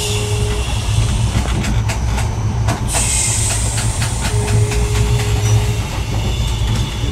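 Passenger train running, heard from inside the coach: a steady low rumble with irregular clicks of the wheels over the rail joints. A high hiss of rushing air grows louder about three seconds in.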